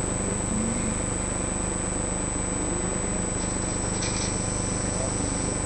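Steady machine hum and hiss under a constant high-pitched whine, with a brief faint hiss between about three and a half and four seconds in.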